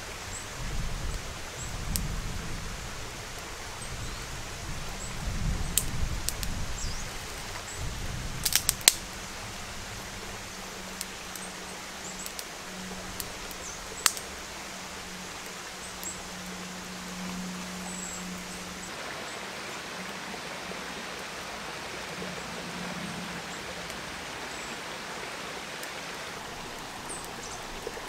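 Small freshly lit fire of birch-bark shavings and twigs crackling, with a few sharp pops: a cluster about nine seconds in and one more a few seconds later. Low rumbling knocks run through the first several seconds, over a steady outdoor hiss.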